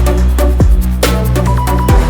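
Electronic dance music with a sustained deep bass line and heavy kick drum hits that drop in pitch, over high cymbal-like hits.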